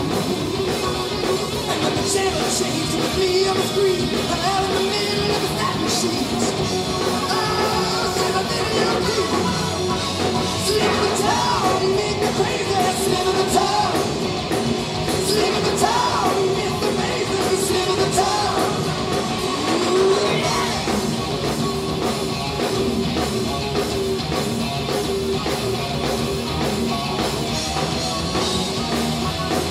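Live hard rock band playing loud, with a male lead singer over distorted electric guitar and drums.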